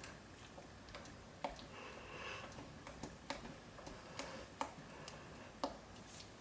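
Spatula stirring thick potassium-hydroxide soap paste at trace in a crock pot by hand: faint scraping with a few light, irregular knocks against the pot.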